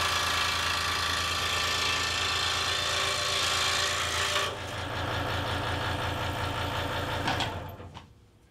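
Delta scroll saw running, its blade rasping through a nailed-together stack of thin boards over a pulsing motor hum. About four and a half seconds in the rasp drops away as the cut is finished, leaving the saw running on its own, and shortly before the end the saw winds down and stops.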